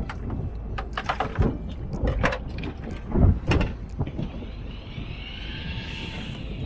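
Knocks and clatter over a steady low rumble, with a faint rising-then-falling whine in the last couple of seconds.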